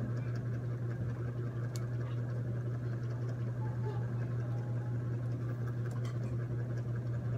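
Steady low mechanical hum with a faint whirring noise above it, unchanging throughout, and a couple of faint clicks.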